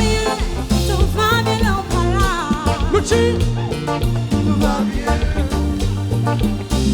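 Live Haitian kompa band music: a steady bass and drum groove with a wavering lead melody over it.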